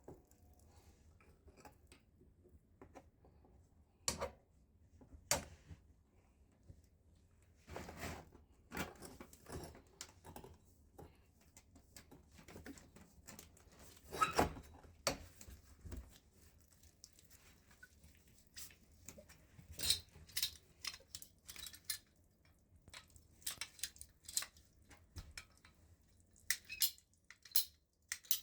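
Irregular clicks, knocks and clatters of hard objects being handled, with quiet gaps between; the loudest clusters come about 8, 14 and 20 seconds in.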